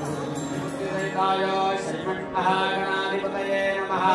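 Background music with long held sung notes.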